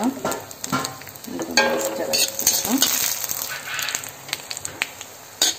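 Dried kanthari (bird's-eye) chillies and mustard seeds sizzling in hot oil, with a steady hiss and scattered sharp crackles: a tempering just after the mustard seeds have popped.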